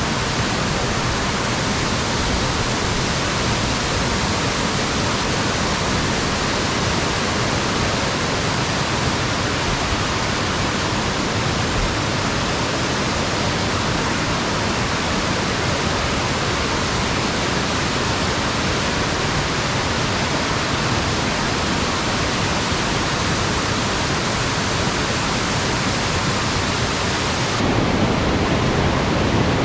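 Rushing whitewater of a mountain creek tumbling over rocks: a steady, even rush of water. Near the end it shifts and grows a little louder.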